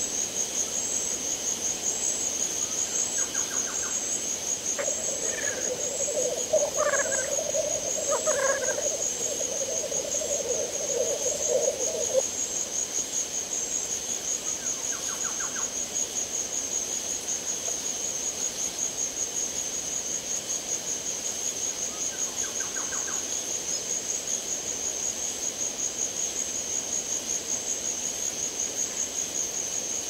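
Tropical forest ambience: a steady, high, pulsing insect chorus throughout, with a low hooting call from about five to twelve seconds in. A few short bird trills and rising calls come and go.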